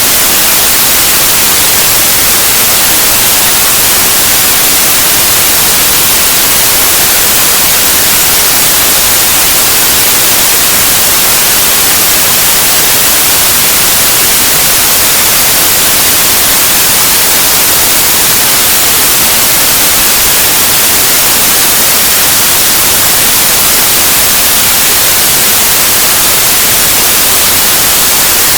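Loud, steady white noise: an even electronic hiss with no tone or rhythm, strongest in the high frequencies.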